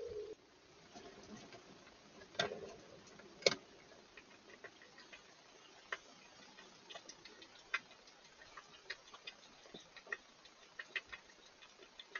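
Faint, irregular clicks and taps of a hedgehog moving about inside a plastic feeding box, with two louder knocks about two and three and a half seconds in.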